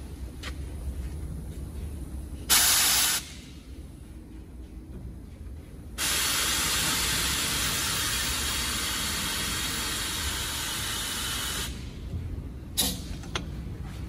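Pneumatic coil spring compressor hissing with air: a short loud burst, then a long steady hiss of about six seconds, followed by a sharp click and a few small knocks near the end.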